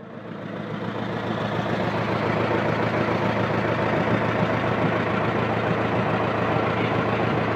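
Boat engine running steadily, fading in over the first two seconds.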